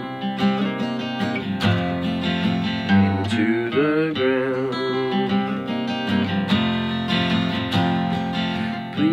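Acoustic guitar strummed in steady chords, an instrumental passage of a slow blues song.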